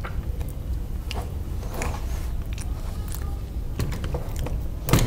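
Clicks and knocks of 3D-printed plastic parts and metal rods being handled and fitted together by hand, with one louder knock near the end, over a steady low hum.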